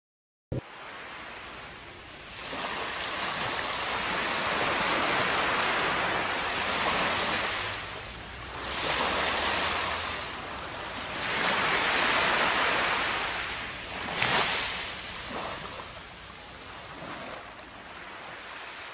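Surf washing up on a sandy beach, the rush of water swelling and fading every few seconds. It starts abruptly about half a second in.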